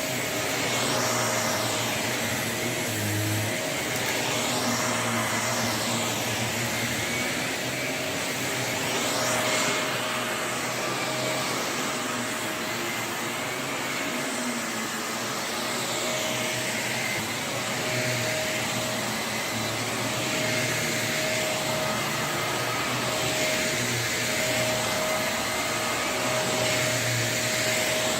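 Shark Navigator Lift-Away NV351 bagless upright vacuum running steadily, a constant rush of air with a steady whine.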